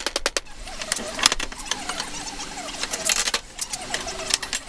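Steel wire mesh being worked into a cable tray. It starts with a quick run of sharp hammer taps on the wire, then goes on with rattling and scraping of the mesh as it is bent.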